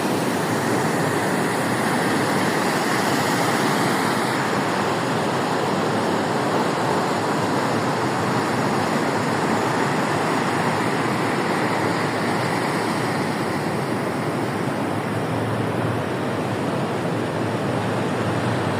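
Continuous roar of rough surf from a stormy sea, a steady wash of noise with no single breakers standing out.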